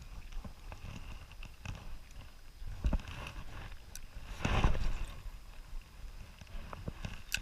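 Small scattered knocks and bumps aboard a bass boat over a low rumble, with one louder rushing burst about halfway through.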